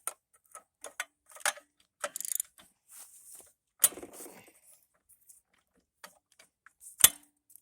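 Socket wrench ratcheting and clicking against metal while a broken spark plug is taken out of the wood chipper's engine: scattered clicks, a quick run of ratchet clicks about two seconds in, and a sharp knock about seven seconds in.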